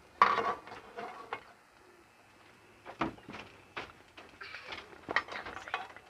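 A metal slotted spoon knocking and scraping against a metal kadai while puris are turned and lifted out of hot frying oil, with a short burst of sizzle and clatter at the start and a few separate knocks later on.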